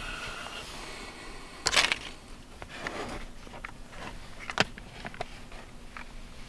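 Cash and a handgun being handled on a car seat: a short rustle about two seconds in, then a few small clicks and one sharp click a little past halfway.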